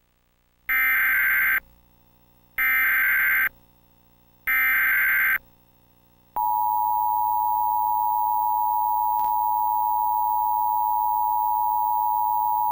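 Emergency Alert System SAME header: three short bursts of warbling digital data tones, each about a second long and about two seconds apart. About six seconds in, the steady two-tone EAS attention signal starts and holds.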